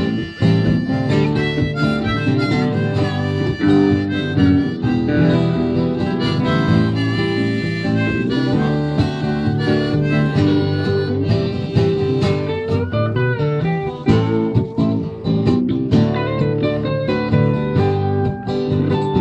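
A band playing an instrumental break of a country song between sung verses: a lead line of held, bending notes over a steady accompaniment.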